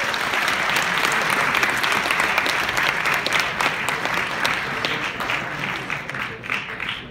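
Large audience applauding, a dense wash of clapping that thins out to scattered individual claps near the end.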